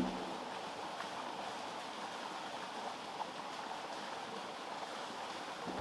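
Steady rushing outdoor background noise with a few faint taps; the ringing tail of a strike fades out at the very start.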